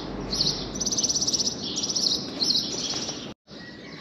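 A small songbird singing a string of high, rapid trilling phrases.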